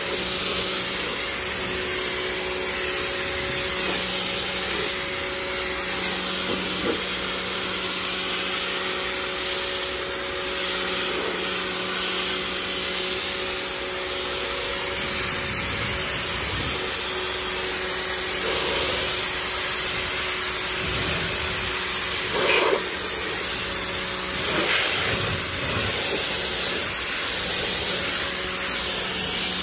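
Pressure washer spraying a jet of water onto a car's bodywork: a steady loud hiss with a low steady hum underneath.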